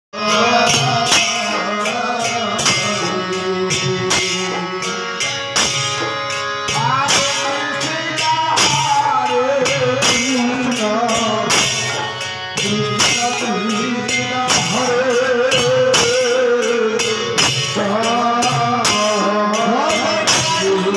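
Naam sankirtana music: several barrel-shaped khol (mridanga) drums beaten in a fast, steady rhythm with jingling hand cymbals, and men's voices singing a devotional chant over them.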